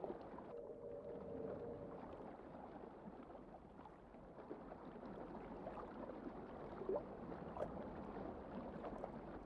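Faint, muffled underwater ambience: a low watery hiss, with a brief low hum in the first couple of seconds and a few soft blips later on.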